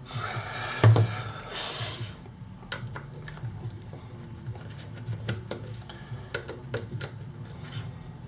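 Small clicks and taps of tools and small parts being handled on a workbench, with one louder knock about a second in.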